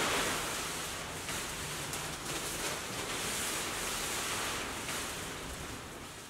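Large sheet of plastic dust sheeting rustling as it is pulled down off the church organ's pipes, the noise slowly fading toward the end.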